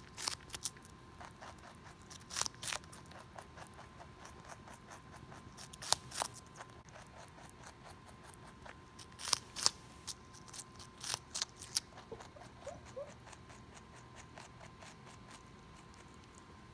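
Rabbit biting into a wedge of watermelon and chewing it: crisp crunches in short clusters every few seconds, with fainter quick chewing clicks between them that carry on after the louder bites stop near the end.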